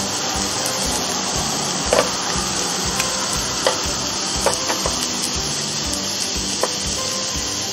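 Steak and vegetables sizzling steadily on the ridged plates of an open contact grill, with several sharp clacks of tongs against the grill plate as the noodles and peas are stirred.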